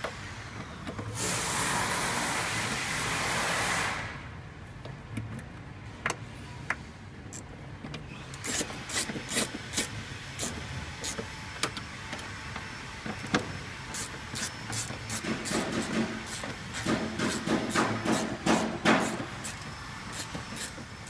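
Hand tools and nuts clicking and clinking on the terminal studs of a new Ford starter relay as it is wired and fastened, in quick irregular runs through the second half. A hiss lasting about three seconds comes about a second in.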